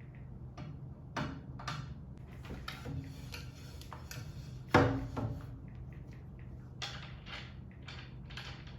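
Handling noises: a string of small clicks and knocks over a low steady hum, with one much louder knock about five seconds in and a quick run of clicks near the end.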